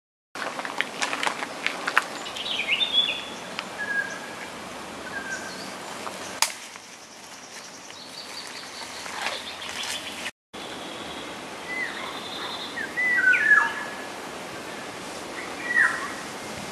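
Birds chirping and calling in short whistled notes over a steady outdoor hiss, with a few sharp clicks in the first seconds and one about six seconds in. The sound drops out for a moment about ten seconds in.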